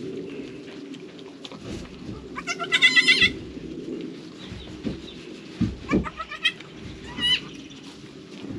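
Newborn goat kids bleating: one loud, high, wavering bleat about two and a half seconds in and two shorter ones near six and seven seconds, over soft rustling of straw and towel.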